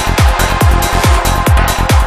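Psychedelic trance music: a steady four-on-the-floor kick drum a little over twice a second, each kick with a quick downward pitch drop, over a continuous low bass, hi-hat ticks and sustained synth tones.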